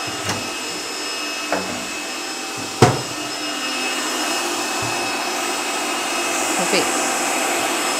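Electric stand mixer running steadily, whipping cold chantilly cream, with a steady high whine over its motor noise. A sharp knock comes about three seconds in, with a couple of lighter clicks before it.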